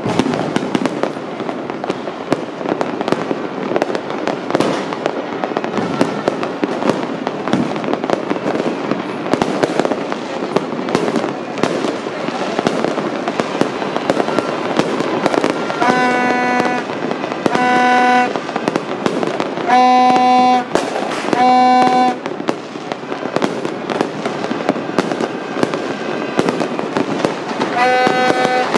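Dense barrage of New Year fireworks and firecrackers, continuous crackling and popping with scattered bangs. A horn honks four times in short blasts from about sixteen to twenty-two seconds in, and again near the end.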